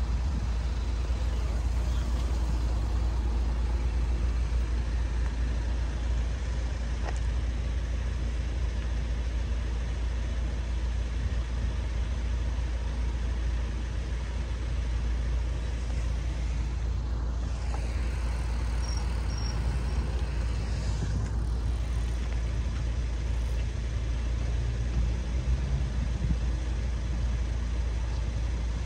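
Steady road traffic noise, with a constant low rumble and no alarm sounding.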